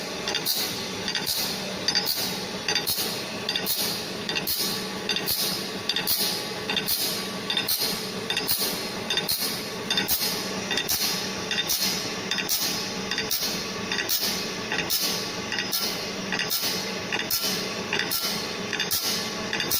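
GD 450Q circular saw blade grinder running automatically through the blade's teeth. A short metallic grinding stroke and clink repeats evenly a little over once a second, over a steady motor hum.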